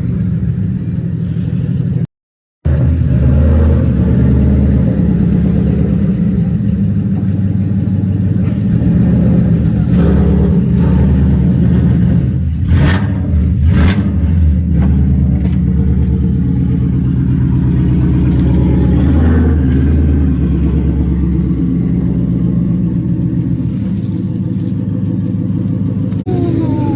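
2018 Ford Mustang GT's 5.0 V8 running loud and steady through open exhaust dumps, with two sharp cracks about halfway through.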